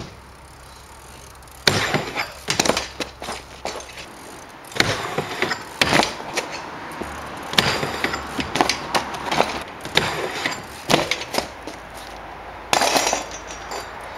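BMX bike hitting and grinding along a skatepark ledge: sharp clanks and clattering scrapes of its metal pegs, in several bursts starting about two seconds in.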